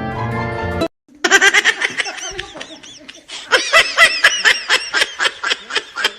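A snatch of orchestral music cuts off about a second in, then someone laughs hard in quick, high-pitched bursts.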